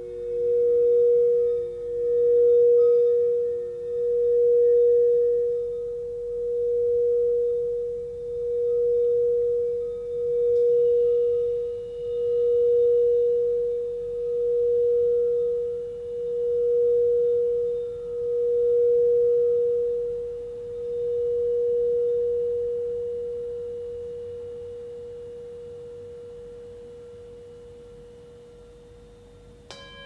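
Frosted quartz crystal singing bowl played around the rim with a mallet: one pure, steady tone that swells and dips about every two seconds. About two-thirds of the way through the playing stops and the tone rings on, slowly fading. Right at the end a small brass singing bowl is struck once and rings with several higher tones.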